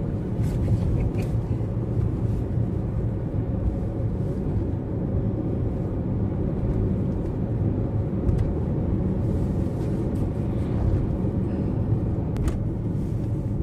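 Car driving along, a steady low rumble of engine and road noise heard from inside the cabin.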